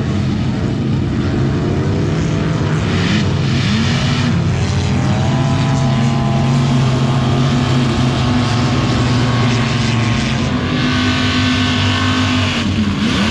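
A vehicle engine running hard at high revs, its pitch wavering up and down, then easing off shortly before the end.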